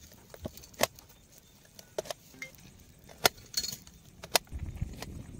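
A wood cooking fire crackling with sharp, irregular pops. About four and a half seconds in, a low rumble joins as the covered pot of chickpeas and potatoes on the fire comes to the boil.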